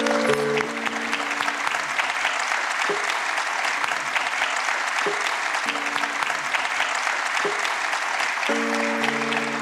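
Audience applauding steadily at the end of a concert. A few held musical notes sound beneath the clapping at the start and again near the end.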